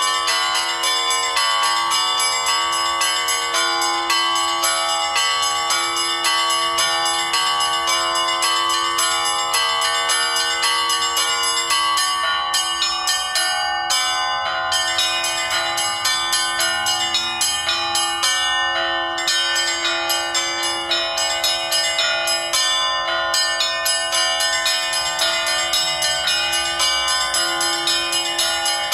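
Bells rung in a quick, continuous run of strikes, several a second, with many pitches ringing on over one another.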